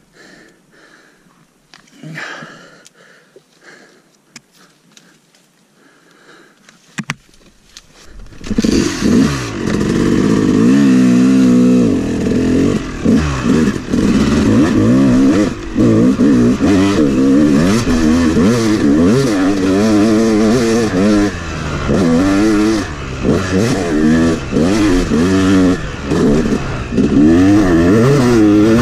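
Faint rustling and small knocks for the first several seconds, then, about eight seconds in, a Yamaha 250 two-stroke dirt bike engine comes in loud and is revved hard, its pitch rising and falling again and again as it is ridden up through the gears along a muddy trail.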